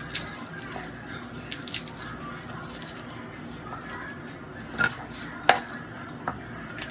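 Kitchenware being handled out of sight: a handful of separate clinks and knocks of pots, dishes or utensils, the loudest about five and a half seconds in, over a steady low background hum.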